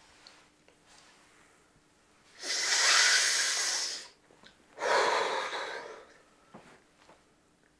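Two long, heavy breaths from a man, each lasting over a second, the first starting about two and a half seconds in and the second about a second after it ends, over a faint steady hum.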